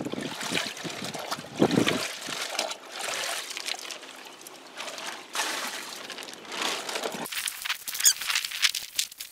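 Water trickling and pouring as a plastic zip-lock bag is rinsed out by hand, with the bag's plastic crinkling near the end.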